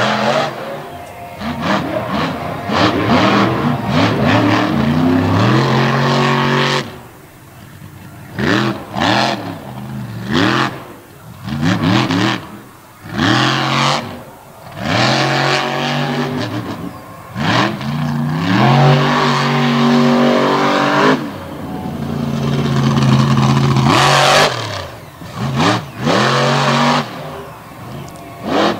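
Monster truck engine from the Stauffer Racing shop revving hard in repeated bursts during a freestyle run. The pitch climbs with each burst of throttle and falls away when it is let off, with several brief lulls between bursts.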